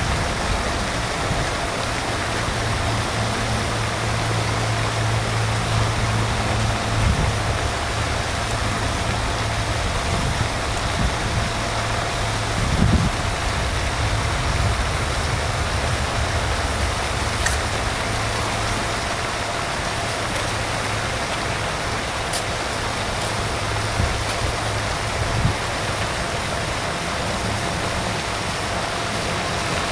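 A steady rushing noise with a low hum underneath, a brief low thump about halfway through and a couple of faint clicks.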